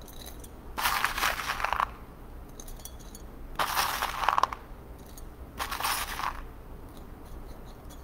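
Handfuls of small orchid potting stones (nanseok) scooped and dropped by hand into a flowerpot to lay a drainage layer. There are three rattling, crunching bursts of about a second each, with faint clicks of single stones between them.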